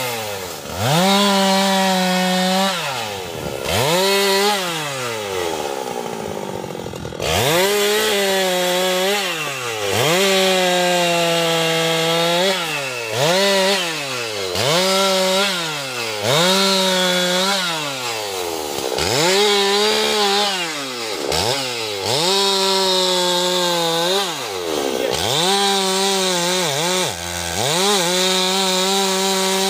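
Husqvarna two-stroke chainsaw cutting teak wood, the engine revving to full speed and dropping back toward idle over and over, about every two seconds, with a longer drop about six seconds in.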